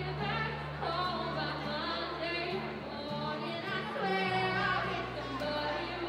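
A woman singing into a microphone over an accompaniment of long held bass notes.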